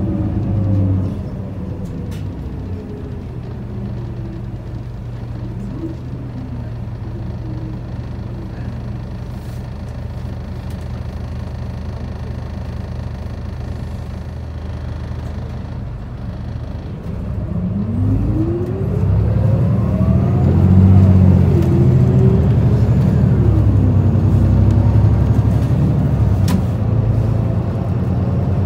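Onboard running sound of an Isuzu Erga QKG-LV234L3 city bus with its four-cylinder turbo-diesel: a steady low hum while the bus rolls along, then, a little over halfway through, a rising whine as it accelerates and the engine and drivetrain noise grows louder, with further rising and falling pitch glides.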